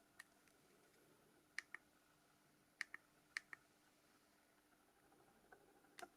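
Faint plastic clicks of a Nokia 6210 Navigator's keypad buttons being pressed, several in quick pairs, with no key tones sounding.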